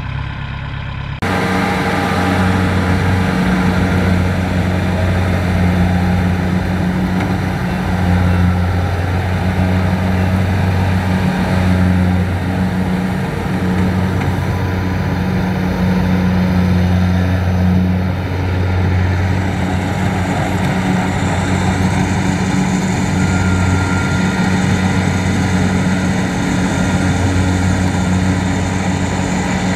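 Kubota DC-70 combine harvester running: a steady diesel engine drone mixed with the noise of its harvesting machinery, cutting in abruptly about a second in.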